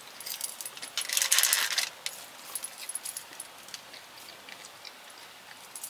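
Paper burger wrapper rustling as it is handled: a short crinkle at the start, then a longer one about a second in, followed by faint small ticks.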